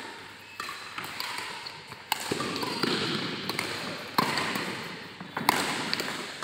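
A badminton doubles rally: sharp racket hits on the shuttlecock a second or two apart, over the noise of onlookers in the hall, which grows louder after about two seconds.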